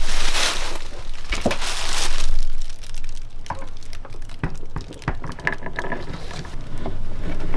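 Plastic bags and towels crinkling and rustling, with a few light knocks, as an RV toilet is moved and set back down over its floor bolts.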